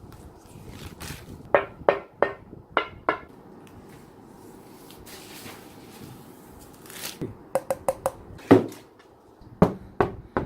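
Parts of a PC case and its accessories being handled. A quick run of sharp taps and clicks comes about one and a half to three seconds in, then a soft rustle, then another cluster of clicks and a heavier knock near the end.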